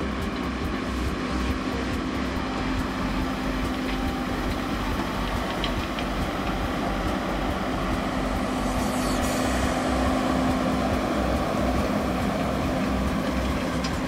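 Massey Ferguson 7726 tractor running steadily under load, pulling a Massey Ferguson 2190 large square baler at work, with a regular low pulsing under the engine note. It grows a little louder as the outfit passes close about two-thirds of the way in.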